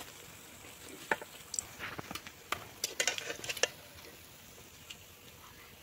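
Perforated metal skimmer scraping and clinking against an aluminium kadai while lifting fried cauliflower pakoras out of hot oil: a run of sharp clicks and scrapes from about a second in until nearly four seconds, then quieter, with the oil sizzling faintly.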